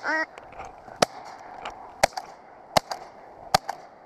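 A quick string of four sharp shotgun reports, about a second apart, each followed by a fainter crack. A short duck quack sounds right at the start.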